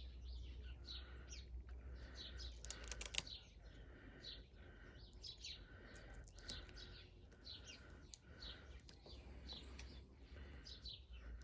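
Small birds chirping and singing faintly in the background, short repeated calls throughout. A brief cluster of crackling clicks about three seconds in, over a faint steady low hum.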